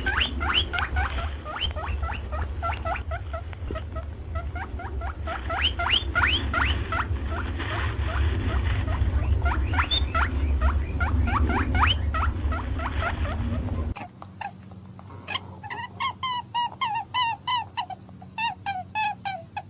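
Animal calls: a rapid run of short, rising squeaks over a low rumble, then a sudden change to a quieter call repeated about two or three times a second.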